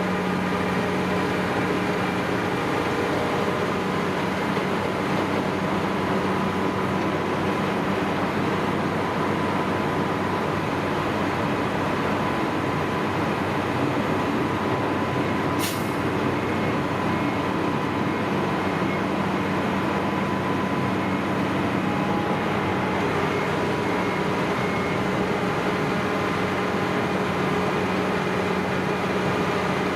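Heavy diesel machinery running steadily at a constant drone with a few held tones, and one brief sharp click about halfway through.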